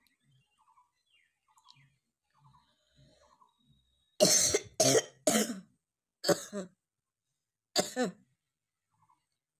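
A person coughing in sharp bursts, about six coughs in three groups: three in quick succession, then two, then a single cough.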